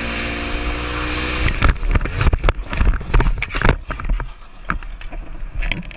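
Motorcycle engine running with wind rush at highway speed. About a second and a half in, a quick run of loud knocks and scrapes lasting a couple of seconds, the sound of the bike going down in a crash; quieter after that.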